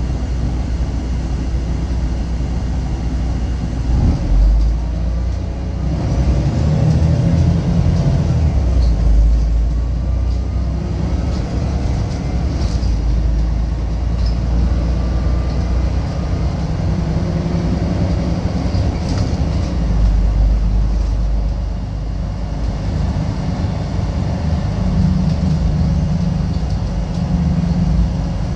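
Volvo B12BLEA articulated bus heard from inside the passenger cabin, its rear-mounted diesel engine and Voith DIWA automatic gearbox running as the bus moves through traffic. The engine's low drone rises and drops several times.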